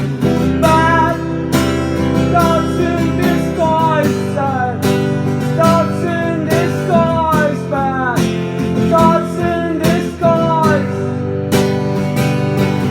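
Live acoustic guitar music: steady strummed guitar with a melody line above it that slides and bends in pitch.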